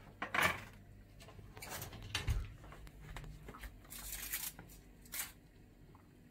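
Metal baking tray knocking and scraping against the oven's wire rack as it is pulled out, with a dull thump about two seconds in. Then aluminium foil crinkling as it is pulled back off the baked bread, around four seconds in and briefly again near the end.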